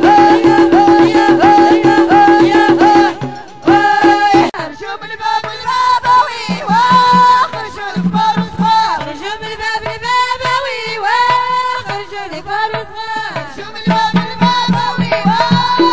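Moroccan Houariyat-style folk music: a steady drum rhythm under held notes, which drops out about three seconds in; a sliding melody line then carries on with only scattered beats, and the drumming comes back near the end.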